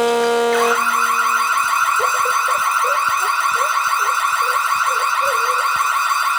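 A loud, fast-warbling siren-like electronic tone, like a car alarm, that starts under a second in, taking over from a steady lower hum, with small chirps and clicks beneath it.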